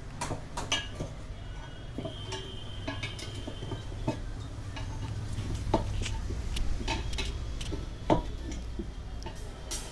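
A steel tyre lever clinking and scraping against a motorcycle's alloy wheel rim as a new tyre is levered onto it by hand: irregular metal taps and clicks over a steady low hum.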